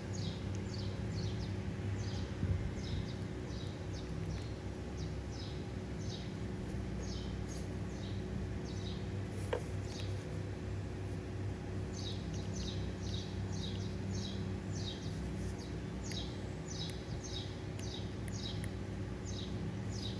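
A small bird chirping in runs of short, high, falling notes, about two a second, over a steady low hum; a single click about halfway through.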